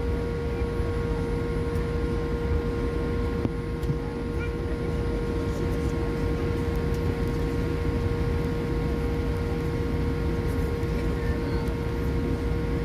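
Steady low rumble of jet aircraft engines at an airport, with a constant droning hum over it.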